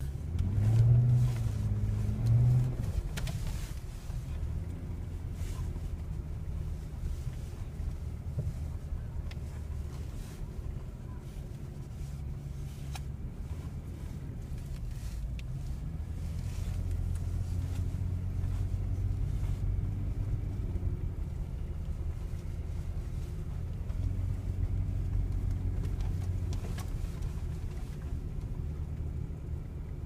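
A 2015 Jeep Wrangler Sahara's 3.6-litre V6 running steadily as it drives, heard from inside the cabin as a low hum that swells a little now and then. Two short louder low sounds come in the first few seconds.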